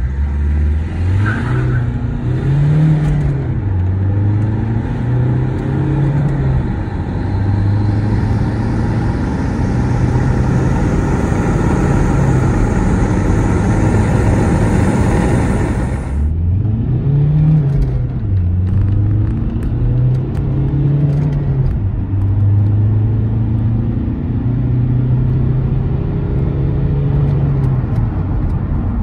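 Opel Vectra C 1.9 CDTI 150 hp turbodiesel engine under full-throttle acceleration, heard from inside the cabin. The engine note climbs and drops back at each gear change. About 16 seconds in, a second run begins, climbing again from low revs.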